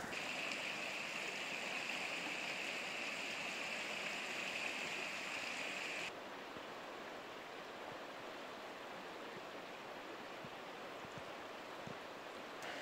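A river flowing, a steady rushing water noise. About six seconds in, the sound changes abruptly: its higher hiss drops away and it becomes a little quieter.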